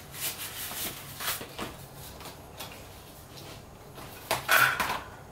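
Paper and a booklet being handled and shuffled, with soft rustling throughout and a louder burst of rustling about four and a half seconds in.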